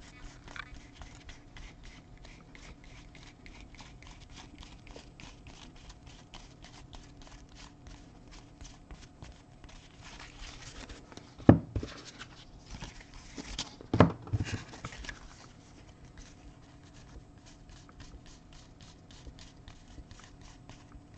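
Stack of soccer trading cards being leafed through one by one: faint card-edge clicks about four times a second. Twice, about eleven and fourteen seconds in, there is a louder sharp knock.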